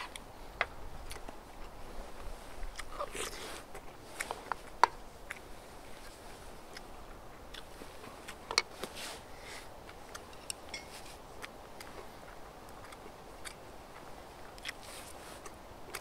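A person chewing and crunching a mouthful of stir-fried spicy pork wrapped in fresh vegetable leaves, with scattered sharp clicks and crackles, the loudest about five seconds in and again near nine seconds.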